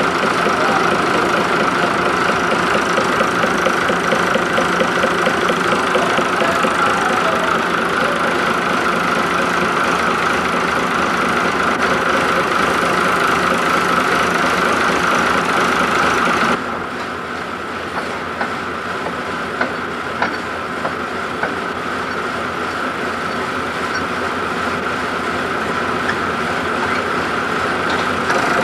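A steady mechanical drone like an engine running, which drops suddenly in loudness and brightness about two-thirds of the way through, with a few faint ticks after.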